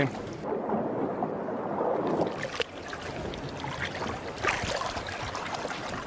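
Steady wash of water and wind noise aboard a small fishing boat, with a couple of light knocks past the middle.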